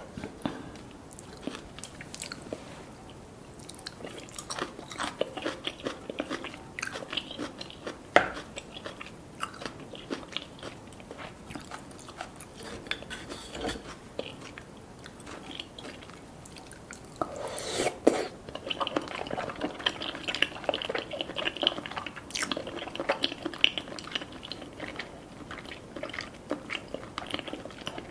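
Close-up eating sounds: chewing and crunchy bites of black rice cones filled with spicy chopped scallop, avocado and salmon sashimi, a steady run of short crackling clicks that grows busier about two-thirds of the way through.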